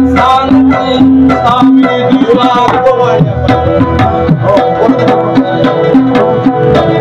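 Instrumental Pashto folk music: harmonium holding sustained chords under steady tabla strokes, with a rabab plucking along.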